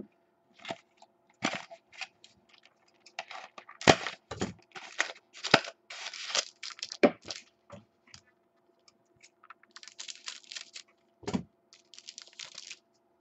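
Trading-card pack being torn open and the cards handled: irregular crackles, rips and clicks of foil wrapper and card stock, over a faint steady hum.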